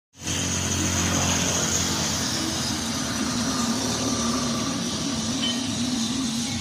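A machine running steadily, with a low hum that wavers slightly in pitch over a noisy mechanical hiss.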